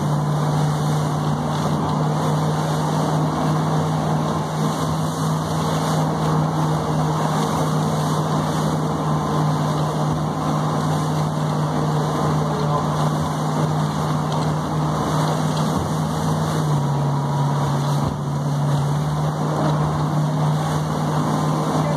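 Motorboat engine running steadily at speed, with water rushing and splashing against the hull in rough water. The engine note drops slightly about two-thirds of the way through.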